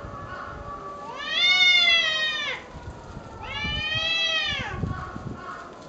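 Two cats squaring off over territory, yowling: two long drawn-out yowls, each rising and then falling in pitch, with a fainter, lower drawn-out tone running beneath them.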